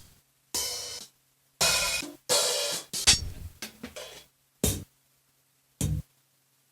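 Single drum samples played one at a time on an Akai Force: several separate cymbal- and hi-hat-like hits, some ringing on for about half a second, with silent gaps between them and no steady beat.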